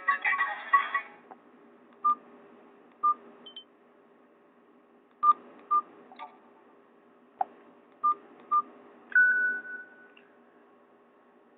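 Mobile phone keypad beeps from a Nokia 216: about six short beeps at one pitch, some in quick pairs, as keys are pressed. A ringtone melody cuts off about a second in, and a higher tone is held for about a second near the end.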